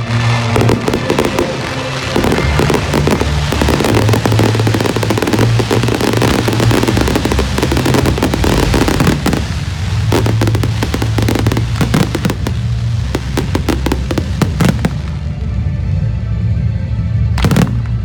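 Fireworks and firecrackers crackling in a dense, continuous barrage that thins out after about fifteen seconds, with one loud bang near the end. Music plays underneath.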